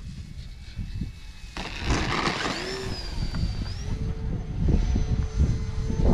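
Electric motor and propeller of an E-flite Turbo Timber Evo RC plane spooling up for takeoff about a second and a half in, the whine rising in pitch and then holding steady as the plane climbs past. Gusty wind rumbles on the microphone throughout.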